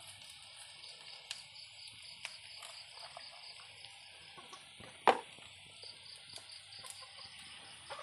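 Insects, crickets by the sound of it, chirring steadily in a rapid pulse of about four chirps a second. A few light clicks and one sharp knock about five seconds in come from a knife slicing shallots and garlic over a bowl.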